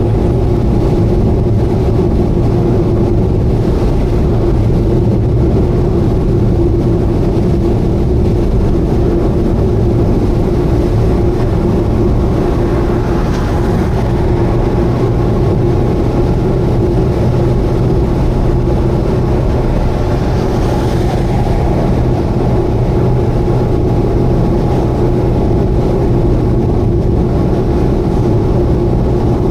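Subaru Vivio (KK3) on the expressway at a steady cruise: the engine drones at a constant pitch over tyre and road noise, with no change in speed.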